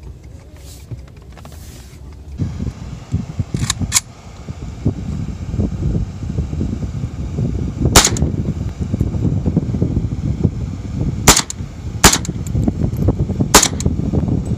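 AK-pattern rifle fired in single shots, about six, spaced irregularly with the first two close together. A heavy low rumble starts about two seconds in, just before the shots, and runs under them.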